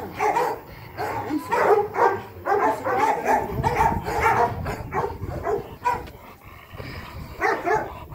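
A large dog barking repeatedly in quick volleys as it lunges at and bites a stick held by a handler: aggressive barking during guard-dog agitation training.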